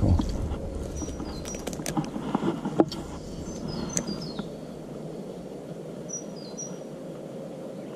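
Small birds giving short high chirps in little groups that step downward in pitch, three times, over a steady outdoor hiss. A few sharp clicks sound in the first three seconds.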